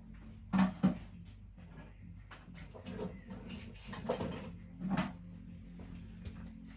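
A few sharp knocks and clatters, like objects being handled or a cupboard or door being moved, the loudest two close together about half a second in, with more around the middle and near the end, over a steady low hum.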